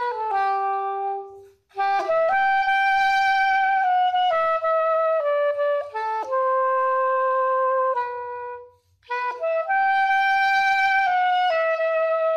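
Curved soprano saxophone playing a solo melody of held notes, in three phrases with short breaks about a second and a half in and just before nine seconds in.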